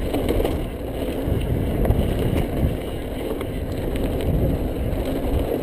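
Mountain bike riding fast down a dirt and gravel trail: a steady rumble of tyres on the loose surface, with small irregular knocks and rattles from the bike over the bumps.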